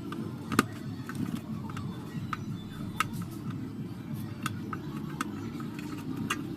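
Irregular sharp clicks and taps of tools and metal parts being handled while a 4440 IC amplifier's case is opened, about a dozen scattered through, over a steady low background rumble.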